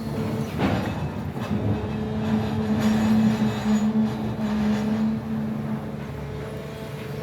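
Excavator's diesel engine running, with a steady hum and drone that grows louder for a few seconds mid-way as the engine takes load. A couple of sharp knocks come in the first second and a half.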